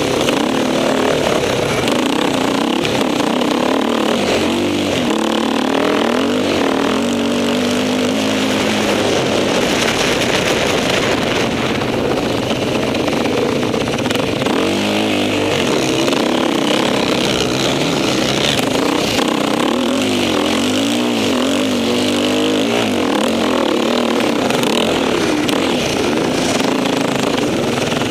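Dirt bike engine revving up and falling back over and over as it rides and changes gear, heard close up from a camera mounted on the bike.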